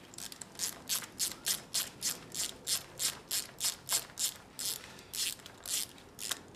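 Hand ratchet clicking steadily, about three clicks a second, as it undoes the small bolt, buried in the grease of the drive shaft boot, that holds a Honda CX500's drive shaft to the engine's output shaft. The clicks stop shortly before the end.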